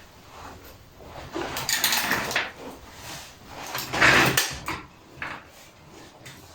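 Metal exhaust parts being handled on a workbench: clinks and scrapes of metal on metal, with two louder rasping stretches about one and a half and four seconds in.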